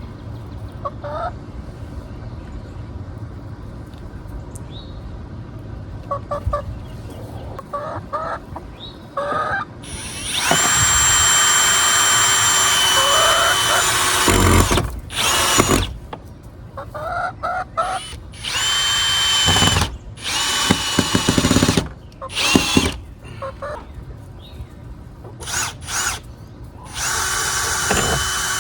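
Chickens clucking, then from about ten seconds in a power drill driving screws, first in one run of about four seconds and then in a series of shorter bursts, each with a steady motor whine.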